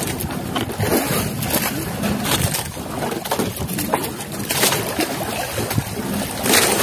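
Choppy sea water sloshing and splashing against a small fishing boat in strong waves, in an uneven rush of noise.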